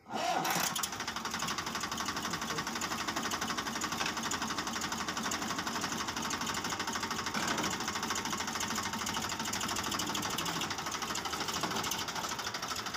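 Sonalika DI-745 III tractor's three-cylinder diesel engine idling steadily, running again after its flywheel ring gear was replaced.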